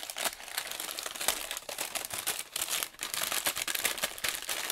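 Paper bag and tissue paper crinkling and rustling as hands open the bag and rummage inside, in irregular bursts.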